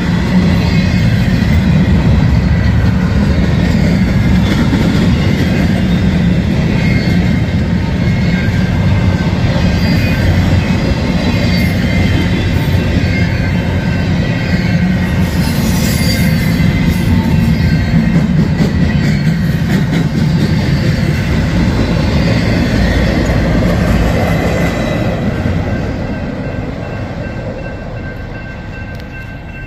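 Empty intermodal well cars of a freight train rolling past, with a heavy rumble and clatter of wheels on the rails and a steady high-pitched wheel squeal. The sound fades over the last few seconds as the train moves away.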